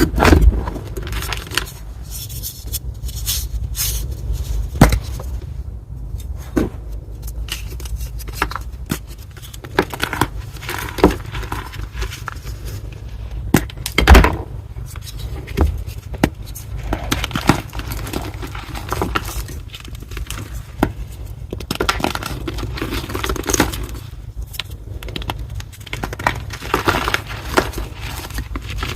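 Reformed gym chalk block being crushed, with irregular crunching and crumbling and sharp cracks throughout, the loudest a few seconds in and near the middle.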